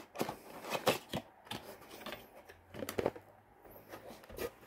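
A perfume's cardboard box and packaging being handled and opened: a string of light clicks, taps and rustles at uneven spacing.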